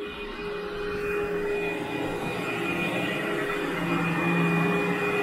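Canister vacuum cleaner running steadily with a constant whine, making pre-vacuum passes over a heavily soiled carpet to pull out dry soil before wet cleaning.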